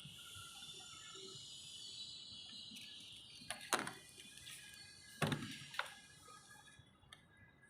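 A few sharp knocks, the first about halfway through and two more a second and a half later, over a steady high-pitched background hiss with faint tones.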